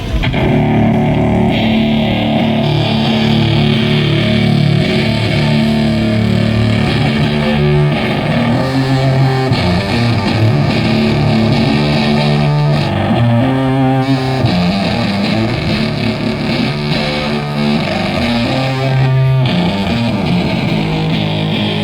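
Heavily distorted electric guitar playing a slow riff of long, held low notes on its own during a sound check.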